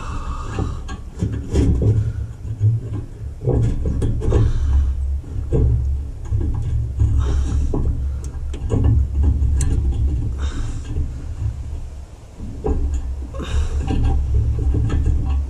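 Wind rumbling on the microphone, rising and falling unevenly, with a few brief hissy rustles.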